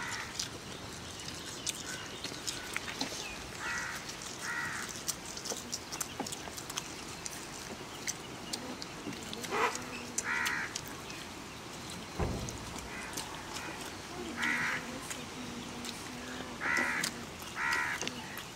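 Birds calling outdoors: about seven short, harsh calls, several of them in pairs, spaced out across several seconds.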